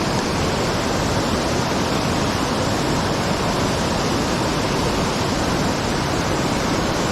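Waterfall pouring: a loud, steady, even rush of falling water with no breaks.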